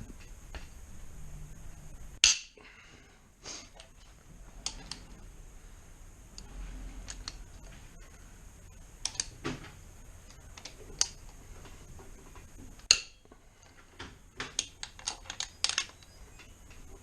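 Scattered metallic clicks and clinks of hand tools and bolts while the cylinder head bolts of a Rover V8 are undone. There are single sharp knocks about two seconds in and near the middle, then a quick run of clicks near the end.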